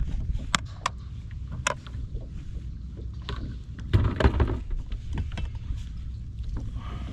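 Handling noises aboard a Hobie Outback fishing kayak: a few sharp clicks and knocks in the first two seconds and a louder scuffle about four seconds in, over a low steady rumble of wind on the microphone.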